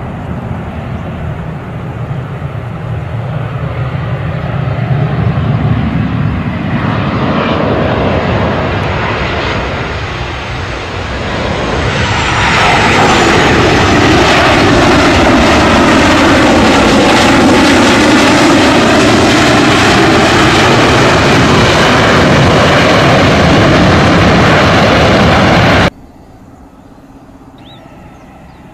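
Jet airliner engines: a rumble that builds, then a loud, steady jet roar with a sweeping, phasing tone as the plane passes on the runway. It cuts off suddenly near the end to a much quieter background.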